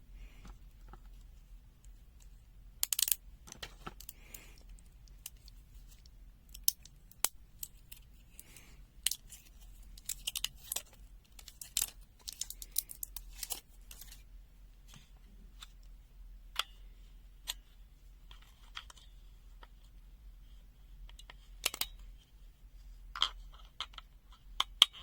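Irregular sharp plastic clicks, snaps and brief scrapes as a handheld digital multimeter's case is opened and handled.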